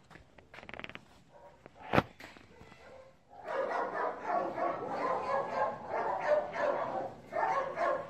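Dogs barking in a dense, continuous run that begins about three and a half seconds in. A single sharp knock comes about two seconds in.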